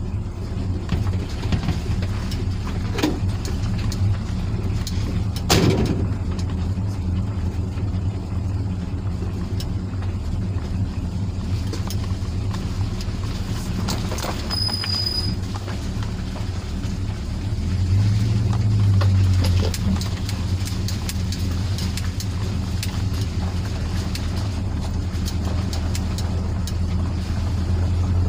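An engine idling steadily with a low hum, rising briefly in pitch about eighteen seconds in. A couple of knocks come near the start, and a short high beep sounds about halfway through.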